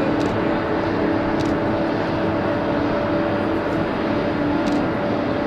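Boeing 777-300 airliner's twin jet engines running steadily as it rolls out along the runway after touchdown, a dense rushing noise with a steady low hum.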